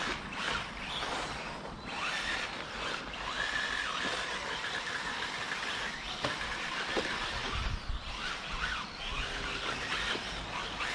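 Small electric motors of 1/10-scale radio-controlled rally cars whining, the pitch rising and falling as the cars speed up and slow down around the track.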